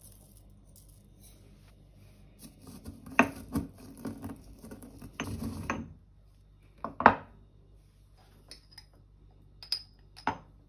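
Stone pestle grinding and crushing mustard seeds, pepper and dried garlic in a stone mortar: about three seconds of gritty crunching and scraping. It is followed by one sharp, loud knock of the stone tools, then a few light taps, and near the end a metal spoon clinks once against a glass spice jar.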